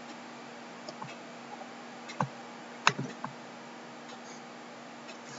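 A handful of scattered clicks of a computer mouse, the loudest about three seconds in, over a faint steady hum.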